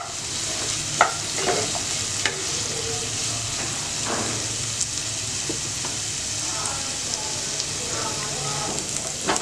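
Sliced onions and green chillies sizzling steadily in oil in a nonstick pan on a medium flame, stirred with a wooden spatula that scrapes and knocks against the pan now and then.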